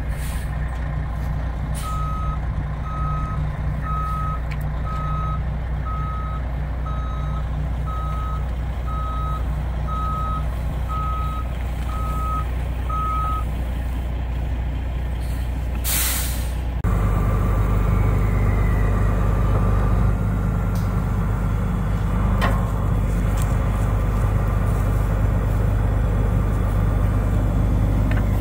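Heavy wrecker tow truck's diesel engine idling as it reverses, its backup alarm beeping about once a second for some eleven seconds. About two-thirds of the way in comes a short, loud hiss of air brakes, and the engine then runs on louder and closer.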